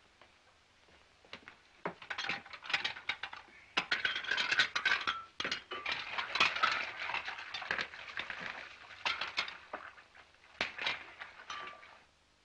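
Crockery and cutlery clinking and clattering while dishes are washed: an irregular run of sharp chinks and rattles with a few brief ringing notes.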